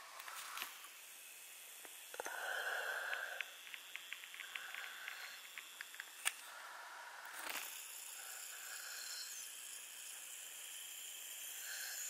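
Soft breathing close to the microphone over a faint steady hiss, with a run of small clicks midway and one sharper click a little after six seconds.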